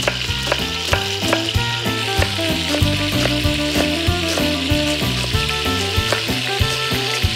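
Pork ribs sizzling steadily as they brown in hot oil in a pot. Over the sizzle, a chef's knife chops an onion against a wooden board in quick strokes, more rapidly in the second half.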